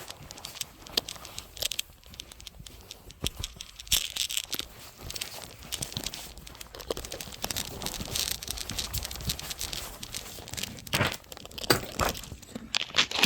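Continuous crinkly rustling of dry, paper-like material, with dense irregular crackles and a few louder sharp ticks near the end.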